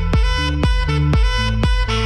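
Background music with a steady beat, about three beats a second, over held notes and a strong bass line.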